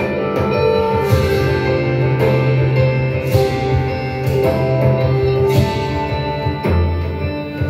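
Instrumental music played back through a Bose Solo 15 TV soundbar during a listening test: held melody notes over a strong bass line, with sharp percussive hits throughout.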